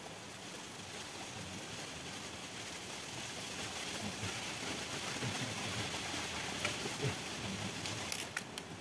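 Steady rush of a small river's flowing water, with a few sharp clicks near the end.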